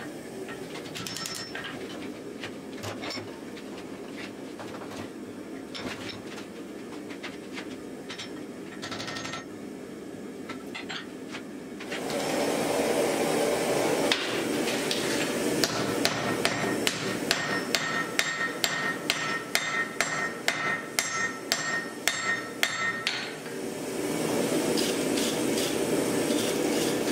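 Hand hammer striking hot steel on an anvil, the anvil ringing after the blows, while forge-welding the folded eye of a bearded axe. The first half has scattered blows; from about halfway a steady rushing noise joins and a quick, even run of blows, about two a second, follows.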